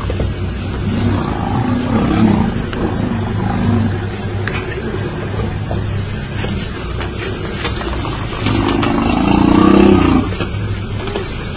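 Loud animal cries, bellowing and growling, as lions attack a young elephant, coming in twice, the second near the end the loudest. A steady low engine hum from an idling vehicle runs underneath.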